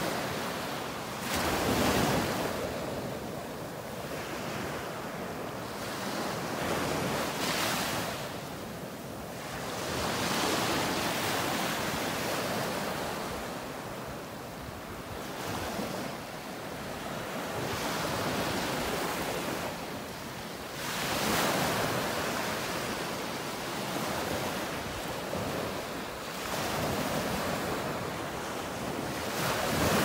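Small surf waves breaking and washing up the sand, swelling and fading every few seconds.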